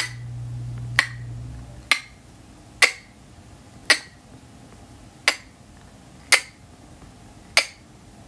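Film-leader countdown sound effect: a sharp tick about once a second, each with a short ring, over a low hum that stops about two seconds in.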